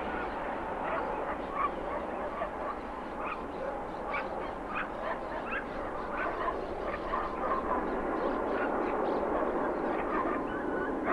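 Birds calling repeatedly in short honking notes over the steady rumble of a distant jet aircraft.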